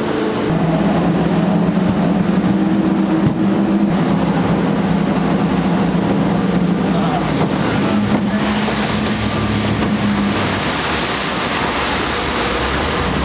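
Motorboat engine running steadily under way, heard from inside the boat's cabin, with the rush of water and wind against the hull. The engine hum shifts pitch slightly about half a second in and again about eight seconds in, and the water hiss grows louder in the second half.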